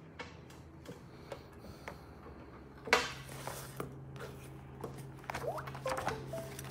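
Handling noise on the recording phone: scattered light taps and clicks, a sharp knock about three seconds in, then rubbing and clicking, with a low hum coming in after the knock.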